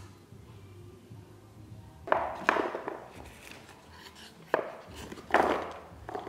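Small hard objects clicking and knocking together as they are handled in a small box, four or so sharp knocks spread over the second half.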